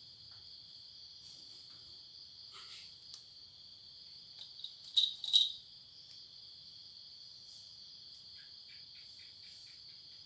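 Crickets chirring steadily, with two short, sharp, loud sounds close together about five seconds in and a quick run of faint ticks near the end.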